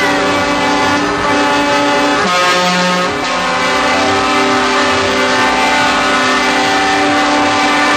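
Truck air horns sounding together in a long, loud multi-tone chord, the notes changing about two and three seconds in.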